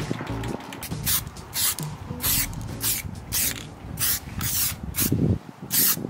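Aerosol spray can of antifouling paint spraying in a series of short hisses, roughly two a second, as the paint is dusted onto a boat's drive leg.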